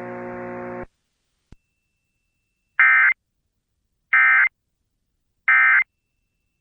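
Emergency Alert System End-of-Message data bursts: three short, identical, buzzy digital chirps about a second and a half apart, signalling the end of the flash flood warning. Before them, a steady droning tone cuts off just under a second in.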